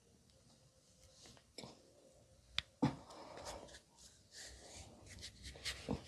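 Hands rubbing and kneading over hair and skin during a head massage, with several sharp clicks and snaps; the loudest comes about three seconds in and two more near the end.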